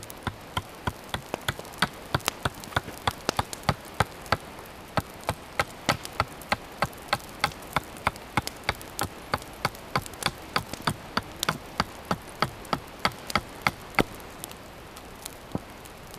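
Quick, regular strokes of a small blade against a wooden stave being shaped into a bow: sharp wooden clicks, about three or four a second, stopping near the end.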